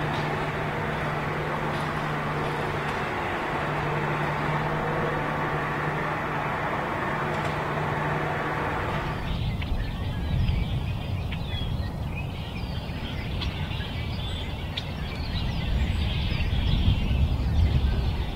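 A farm tractor's engine drones steadily. About nine seconds in it cuts off abruptly and gives way to a low rumble with small birds chirping faintly.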